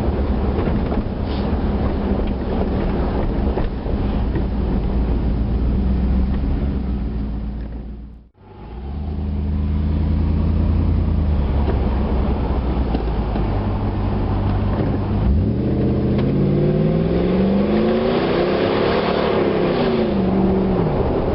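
Toyota Tundra engine running steadily, the sound dropping out briefly about eight seconds in, then revved up and back down twice in the last few seconds. It is recorded to show a tick the owner cannot place: valve tick, piston slap, an exhaust manifold leak or an injector.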